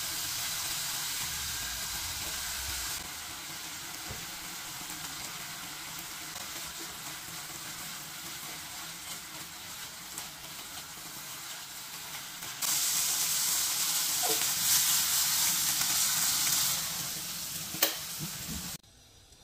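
Chicken strips sizzling in oil and barbecue sauce in a nonstick pan while a spatula turns them. The sizzling grows louder about two-thirds through. Near the end there is one sharp click, and then the sizzling cuts off.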